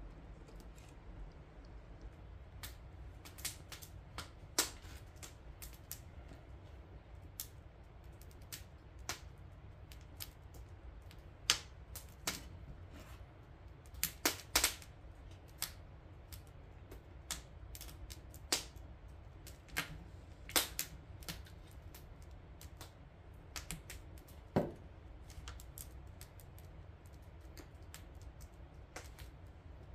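Burning firewood crackling, with irregular sharp pops and snaps, a few loud ones close together, over a steady low rumble.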